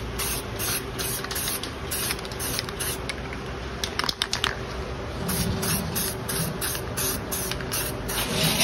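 Aerosol spray can of black truck bed liner coating hissing as it is sprayed. A short run of sharp clicks comes about four seconds in.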